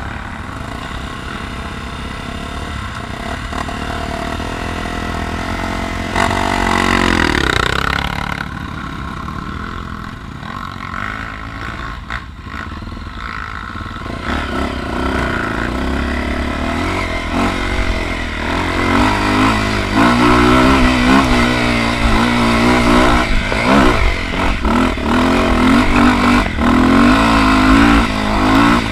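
Dirt bike engine running under throttle. It revs up once, rising in pitch, about a quarter of the way in, then runs louder, with its pitch wavering up and down, through the last third. Scattered knocks are heard along the way.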